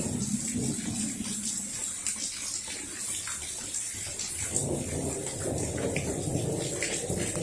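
Steady rain hiss during a thunderstorm, with a few drops ticking close by. A low rumble of distant thunder swells and fades in the second half.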